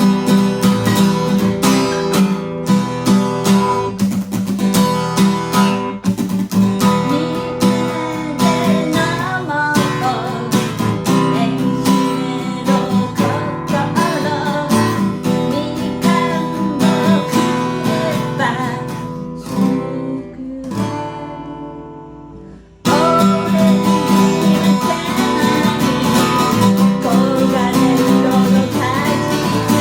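Acoustic guitar strummed hard and fast. Near the middle the strumming thins out and rings away to a quiet decay, then comes back in suddenly at full strength about 23 seconds in.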